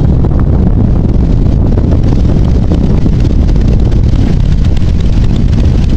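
Wind buffeting the microphone: a loud, steady low rumble with no distinct events.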